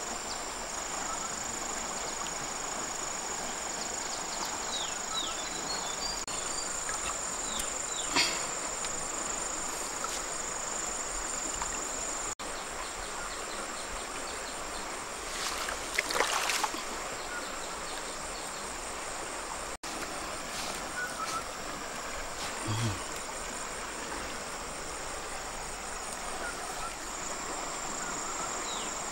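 A high, steady insect trill over the even wash of a flowing river, with a couple of brief handling noises.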